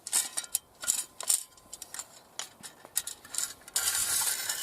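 A metal folding bucksaw being handled and set up: a string of light metallic clicks and clinks, then a longer scraping rustle from about three and a half seconds in.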